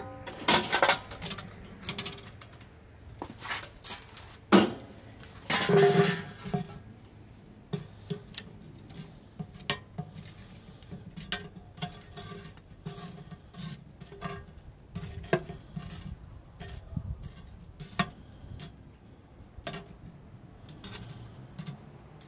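Metal tongs setting hot charcoal briquettes one at a time onto the cast-iron lid of a 12-inch Camp Chef Dutch oven: a long string of light clicks and clinks. A few louder metal clanks come in the first six seconds.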